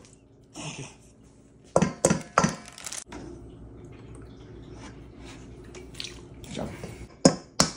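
Water poured from a plastic measuring cup into a stainless steel mixing bowl of dry pancake mix, then poured from a jug into the cup and tipped into the bowl again. A few sharp knocks, about two seconds in and near the end.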